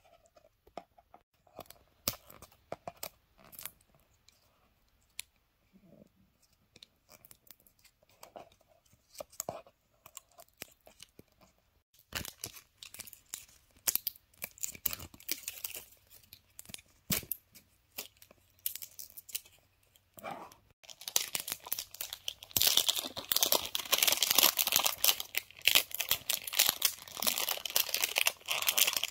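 Fingernails picking at and tearing the seal of a cylindrical cardboard perfume case, with scattered taps, scrapes and short rustles. Over the last third comes loud, continuous crinkling and tearing of clear plastic wrap.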